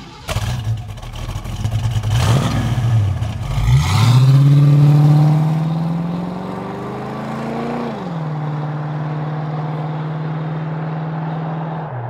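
Car engine revving up, its pitch climbing steadily for about four seconds, then dropping and holding a steady drone. Before it comes a few seconds of noisy clatter.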